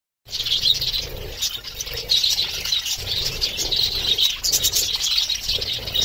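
A flock of budgerigars chattering and warbling continuously, many birds calling over one another.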